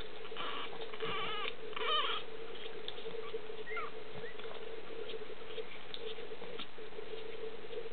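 Boston terrier puppies squeaking and whimpering: several short, high calls in the first two seconds and another rising squeak about four seconds in, over a steady hum.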